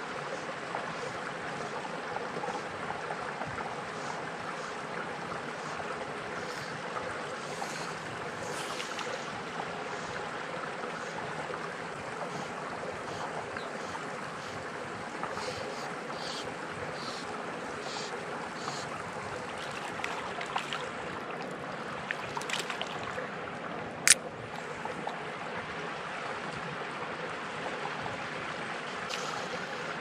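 Steady outdoor noise of wind and water at a pond's edge, with scattered faint ticks and one sharp click about two-thirds of the way through.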